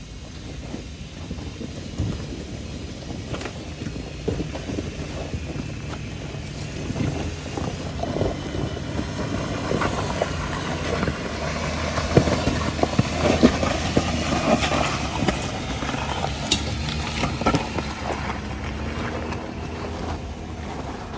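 Jeep Wrangler's V6 running at low crawling speed as it picks its way over loose rocks, with tyres crunching gravel and stones knocking and clattering under the wheels. It grows louder toward the middle as the Jeep comes close, with wind on the microphone.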